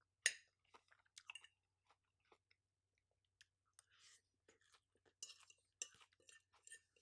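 Faint chewing of food: soft crunchy clicks, sparse at first and coming more often over the last couple of seconds.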